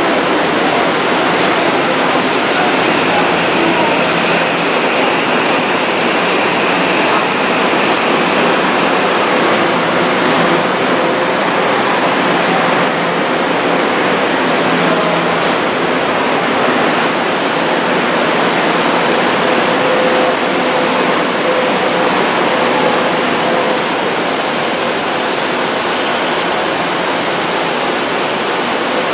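Subway train running, a steady loud rushing noise with a faint steady hum in it.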